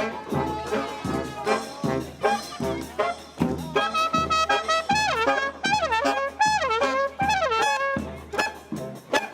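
Brass-and-percussion samba band playing, with trumpets and trombones over steady drum strokes. In the middle the horns play a repeated phrase that slides down in pitch.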